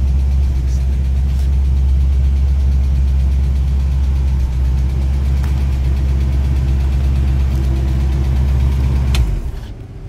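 The 1966 Ford Mustang's 289 V8 idling steadily, a low even hum heard from inside the car, which stops abruptly with a click near the end.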